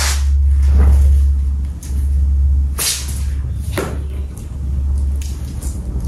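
A cotton rope rasping across a wooden floor in a kitten's tug-of-war: about five short swishes, over a steady low rumble.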